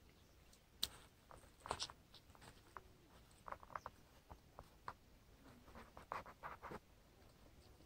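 Faint, scattered clicks and scrapes of loose shoreline stones shifting under a person's feet as he stands up and steps along the rocks.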